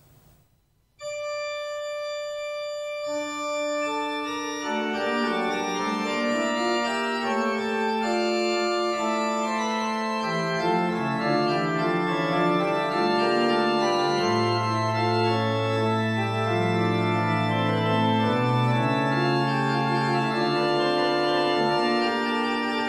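Italian-inspired pipe organ playing a sustained polyphonic passage on a principal chorus built up from the base: Principale 8', Ottava 4', Quintadecima 2' and Decimanona 1 1/3' (single ranks of a split mixture). It enters about a second in, and the sound grows fuller over the next few seconds.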